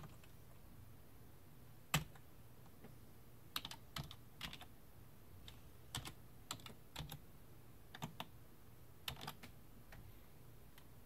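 Faint keystrokes on a computer keyboard, a single click about two seconds in, then short irregular runs of clicks with pauses between them: a password being typed in to log in.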